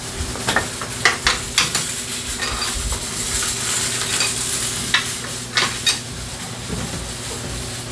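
Metal hand tools clinking and scraping as wrenches are worked on a scooter's rear engine and exhaust mounting, with a few sharp clanks and a stretch of hiss-like scraping in the middle. A steady low hum runs underneath.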